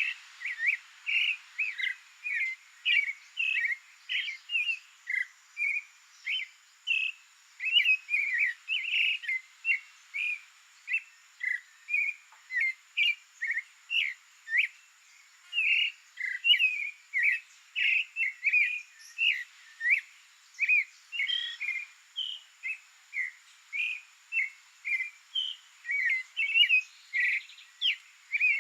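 Creamy-bellied thrush singing: an unbroken run of short, clear notes at shifting pitches, about two to three a second.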